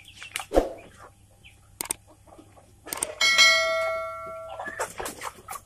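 A bright bell-like ring from a subscribe-button sound effect starts suddenly about three seconds in and fades over about a second and a half. Around it, village chickens cluck and scuffle, and a single loud thump comes about half a second in.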